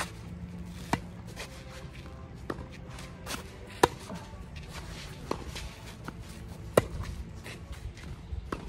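Tennis warm-up rally: sharp racquet-on-ball hits, three loud ones about three seconds apart from the near player, with softer ball bounces and fainter hits from across the net between them, and shoes scuffing on the court.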